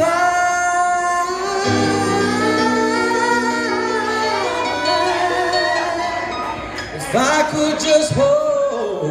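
A man singing a ballad over backing music. He holds one long note for the first few seconds while a low sustained backing note comes in beneath it, then sings a lower, wavering line and a second held phrase near the end.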